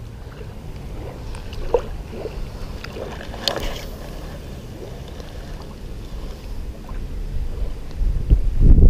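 Wind rumbling on the microphone, growing stronger in a gust near the end, with a few faint clicks and taps from handling the fishing rod and reel.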